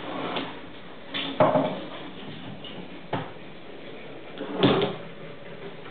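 Wooden knocks and scrapes at a woodworking bench, four in all, the loudest about one and a half seconds in and again near five seconds in.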